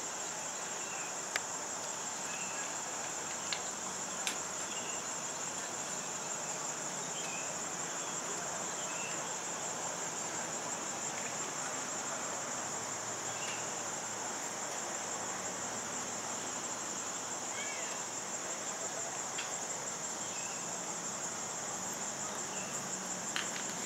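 Steady high-pitched chorus of insects trilling without a break, over soft background noise, with a few faint clicks in the first few seconds.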